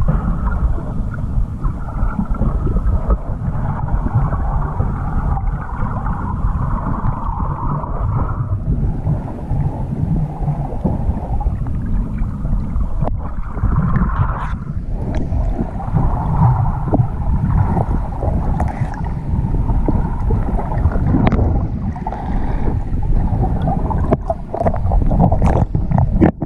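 Underwater sound picked up by a submerged camera: a steady low rumble and gurgle of water moving around the housing as the snorkeler swims. From about halfway on, scattered sharp clicks and knocks come through as gloved hands work among the stones on the lake bed.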